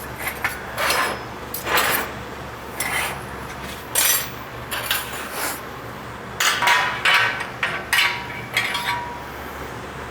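Metal workpieces and tools being handled: irregular clanks and clinks, some ringing briefly, as steel pipe pieces are moved and set up for a brass brazing joint; the clatter stops about a second before the end.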